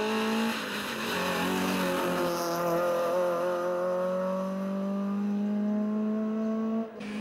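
Citroën C2 rally car's engine pulling hard past the spectators. Its pitch drops at a gear change about a second in, then climbs slowly and steadily as the car accelerates away. It cuts off suddenly near the end.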